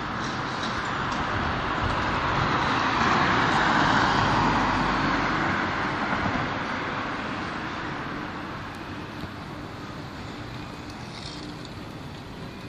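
Street traffic: a car passes, its engine and tyre noise swelling to a peak about four seconds in and then fading away, over a steady background traffic hum.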